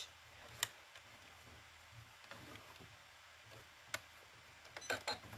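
Quiet room tone with a few faint, sharp clicks from work at a sewing machine: one under a second in, another about four seconds in, and a short run of them near the end.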